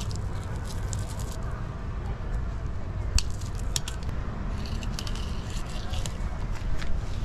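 Fillet knife cutting through a large mahi-mahi: wet squishing with scattered small clicks and crackles, and one sharper click about three seconds in, over a steady low rumble.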